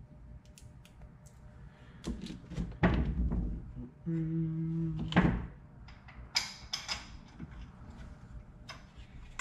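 Cordless drill-driver running steadily for about a second to drive an Allen bolt back into the compressor's piston head, among scattered clicks and knocks of the bolts and tool being handled.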